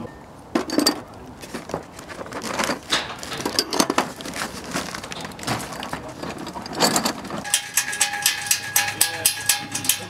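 Heavy steel bolts clinking and clattering as they are tipped out of a cardboard box into a metal wheelbarrow. About seven and a half seconds in the sound changes to a fast, even run of metallic clicks, about five a second, with a faint steady ring behind them.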